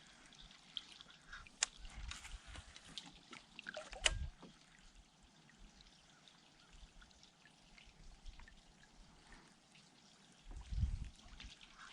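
Faint water dripping and trickling, with a few small sharp knocks, the loudest about one and a half and four seconds in.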